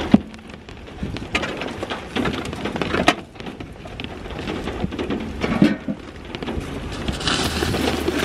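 Rustling and knocking as bags and belongings are shifted about in a car's back seat, with a thump just after the start and a sharp knock about three seconds in.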